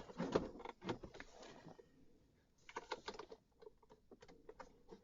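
Light irregular clicking and scraping of a flathead screwdriver prying at a plastic wiring connector's tab on the back of a Honda instrument cluster. The clicks come in a cluster at the start, pause briefly after about two seconds, then resume.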